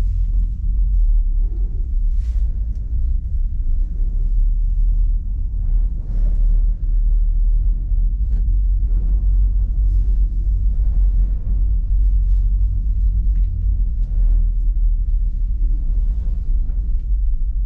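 Steady low rumble heard from inside a one-person gondola cabin as it rides down the cable, with faint scattered ticks and knocks.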